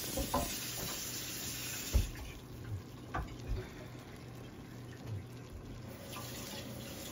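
Chopped red onions and tomatoes sizzling in a stainless steel pot, a steady hiss that is louder for the first two seconds. A sharp knock about two seconds in and a few soft clunks follow.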